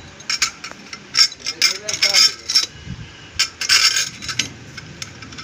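Metal clinks and rattles in several short clusters from steel bolts and hand tools being handled on an engine's cylinder head and its upper cover plate.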